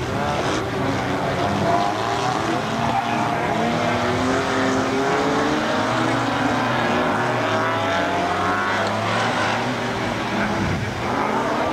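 Several rallycross cars racing past, their engines revving up and down through the gears, with several engine notes overlapping and rising and falling.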